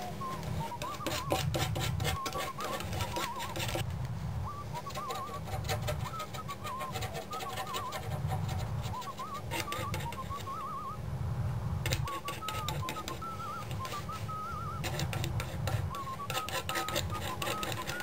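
A palette knife scraping and tapping acrylic paint onto a wooden panel, in bouts of dense scratching during the first few seconds and again in the last third. Short warbling whistled notes come and go throughout.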